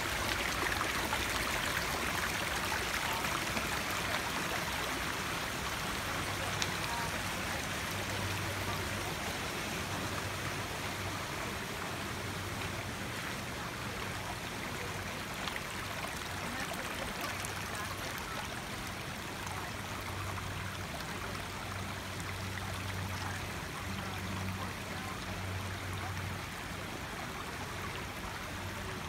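Shallow creek running over rocks and stones: a steady rush of water.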